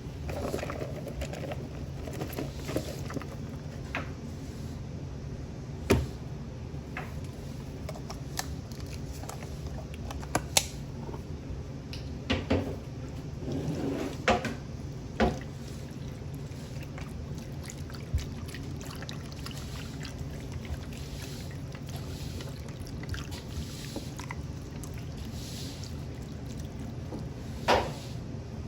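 Kitchen food-prep sounds: scattered knocks and clinks of pots and utensils, with some pouring liquid, over a steady low hum.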